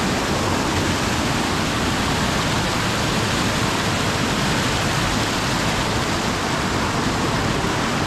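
Steady rush of falling water from Kalu Waterfall, a large monsoon waterfall, even and unbroken.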